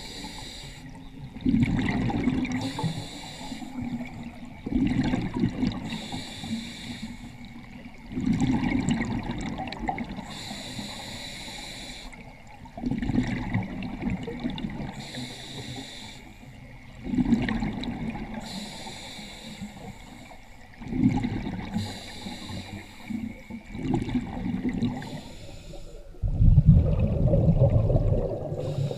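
Scuba regulator breathing underwater: a short hiss on each inhale, then a gurgling rush of exhaled bubbles, repeating about every four seconds. The last exhale near the end is the loudest.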